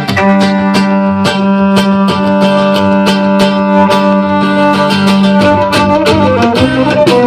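Live gypsy-rock band playing: a strummed acoustic guitar keeps a driving rhythm while a violin holds one long low note for about five seconds, then breaks into a quick melody. The tune is built on a Turkish rhythm and on the pitches of cows mooing.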